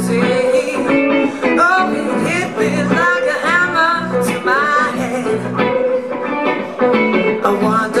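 A woman singing live into a microphone, accompanied by a guitar.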